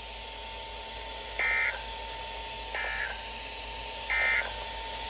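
Emergency Alert System SAME end-of-message data bursts: three short, identical buzzy digital chirps about 1.4 seconds apart, over a faint steady tone. The bursts signal the end of the alert message.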